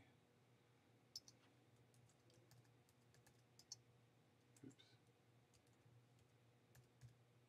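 Faint, slow typing on a computer keyboard: a few separate keystrokes at irregular gaps, over a faint steady low hum.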